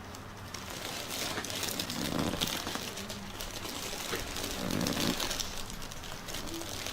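Rustling and rubbing of hands massaging a person's back, with crinkling of clothing and the table cover as the body shifts under the pressure.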